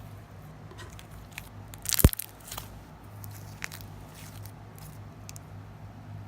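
Sticky homemade slime being squeezed and stretched by hand, giving scattered crackles and clicks, with a loud pop about two seconds in.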